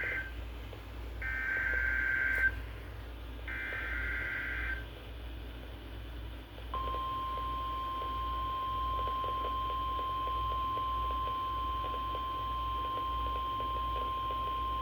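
NOAA Weather Radio Emergency Alert System signal. Three warbling, screechy SAME data bursts about a second apart, the first already underway, carry the coded header of the next warning. About two seconds of pause follow, then the steady single-pitched 1050 Hz weather radio alert tone starts and holds.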